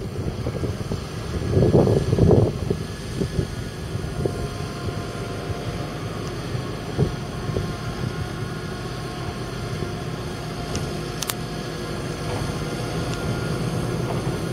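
Fendt 927 Vario tractor's 7.8-litre six-cylinder turbocharged diesel running steadily as it pulls a water tanker past, with a brief louder rush of noise about two seconds in. The engine grows slightly louder near the end as the tractor comes closer.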